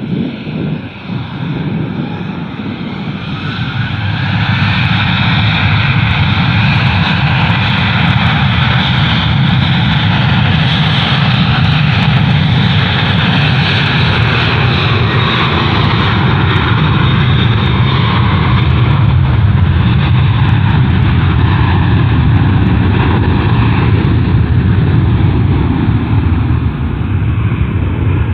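Airliner engines passing close by, building over the first few seconds and then holding loud and steady, with slowly sliding whine tones over a deep rumble.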